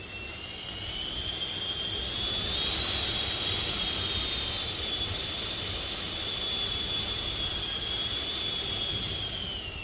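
Storm wind whistling through a gap, a high shrill tone with overtones over a low rumble of wind. It climbs in pitch and loudness as a gust builds over the first couple of seconds, holds, and falls away near the end.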